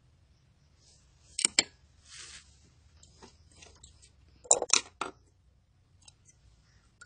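Handling at a sewing machine while fabric is positioned under the presser foot: two clusters of sharp clicks and knocks, about a second and a half in and again around four and a half seconds in, with a short rustle of fabric between them. The machine is not stitching.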